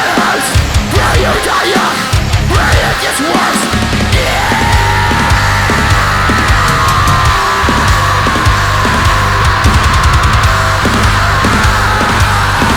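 Loud heavy metal band music with no singing. A long high held note comes in about four seconds in and slowly sinks in pitch.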